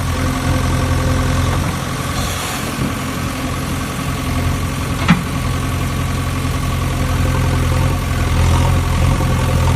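JCB excavator's diesel engine running steadily, with a single sharp knock about five seconds in.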